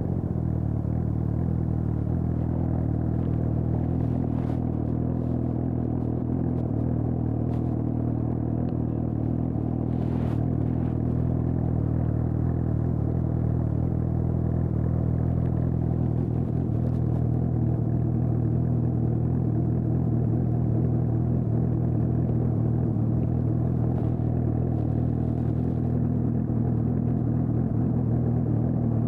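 2020 Suzuki GSX-S750's inline-four engine idling steadily through an aftermarket Storm exhaust.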